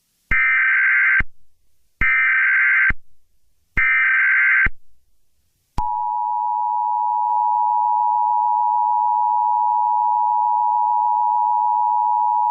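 Emergency Alert System SAME header: three bursts of buzzing digital data tones, each just under a second long. Then, a little under six seconds in, the steady, loud two-tone EAS attention signal starts and carries on.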